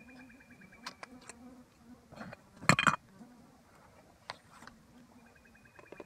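A flying insect buzzing close by, a low wavering drone that fades in and out. Camera gear clicks as it is handled, with one loud clatter about three seconds in.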